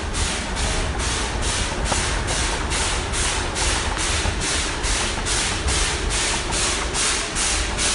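Model passenger train running past on layout track: a steady low rumble of wheels and motor with a regular hissing beat about three times a second.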